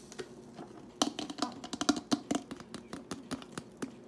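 Foam beads being tipped and tapped out of a plastic bottle into a glass mason jar with a wooden stick: a run of quick, irregular clicks and taps, starting about a second in.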